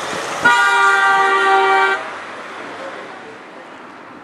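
A passing car's horn sounds one steady blast of about a second and a half, over the noise of the car going by close, which then fades away.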